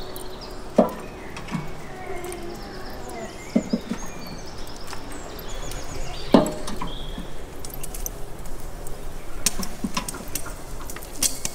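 Metal kebab skewers clinking and knocking against the steel edge of a charcoal grill as they are laid across it one by one: a few sharp metallic knocks spaced a second or more apart.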